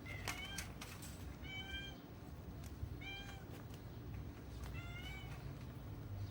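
A cat meowing four times in short, high calls, with a few light clicks in the first second.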